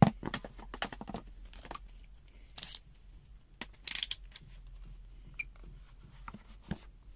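Handling noise from multimeter test probes and a capacitor. A sharp knock is followed by a quick run of clicks over about the first second, then two short rustles around the middle and a couple of faint clicks near the end.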